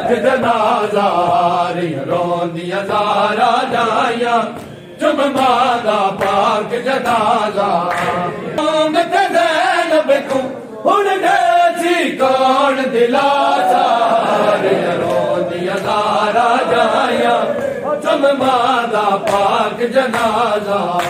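Men's voices chanting a noha, a Shia mourning lament, together in a rising and falling sung melody, with a brief break about five seconds in.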